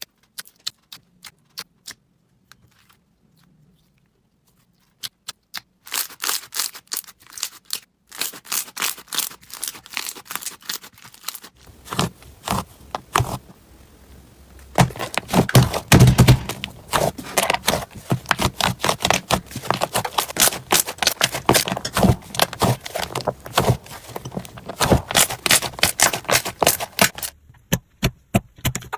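Slime being squeezed, poked and pressed by hand, making a dense run of sharp crackles and pops with some dull thuds. Only a few scattered clicks at first, then busy and continuous from about six seconds in.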